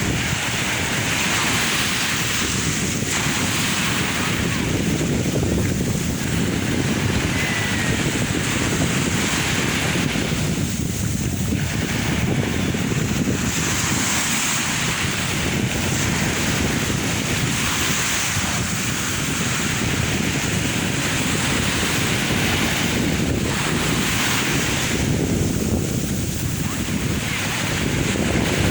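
Sea waves washing onto the shore in a continuous surf, swelling and easing every few seconds, with wind buffeting the microphone.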